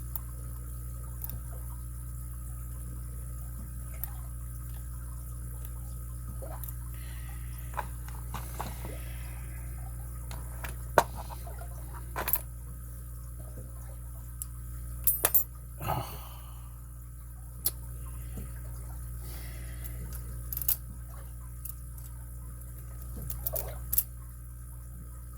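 Lock picking on a padlock: scattered small sharp metallic clicks and faint scrapes from the pick and tension wrench working the pin stack, over a steady low hum.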